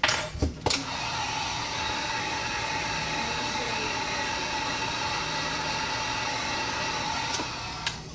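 Heat gun blowing hot air to soften the glass adhesive: a steady rush of air with a motor whine. It clicks on at the start and cuts off sharply after about eight seconds.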